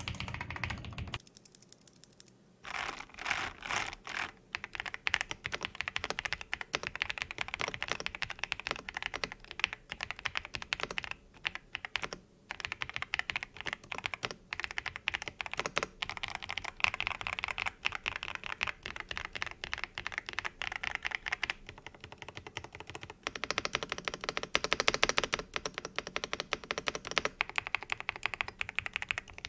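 Fast, continuous typing on an Attack Shark X98 full-size mechanical keyboard with pre-lubed linear Blueberry switches and PBT keycaps, with a short pause about two seconds in. The reviewer judges the typing sound fairly loud.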